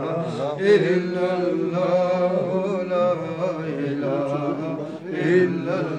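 Male voices chanting a slow religious recitation, in long held notes that waver in pitch and run on without pause.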